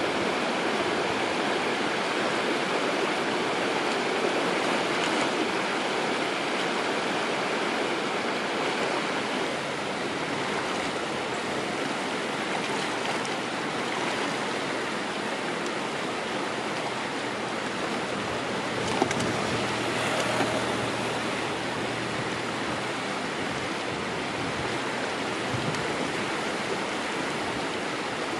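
Shallow stream running over rocks and small riffles, a steady rush of water, with a few light knocks here and there.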